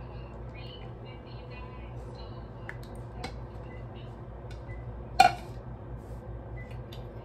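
Light kitchen-handling taps and clinks over a low steady hum, with one sharp knock about five seconds in as a plastic measuring cup is set down on the counter.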